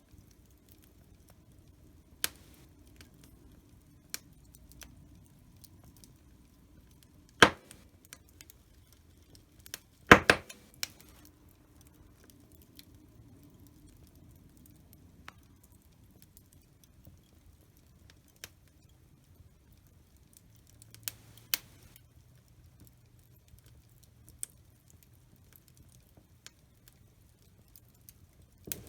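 Wood fire crackling in a fireplace: scattered sharp pops and snaps over a low, quiet background, with the loudest snap a few seconds in and a quick burst of pops soon after.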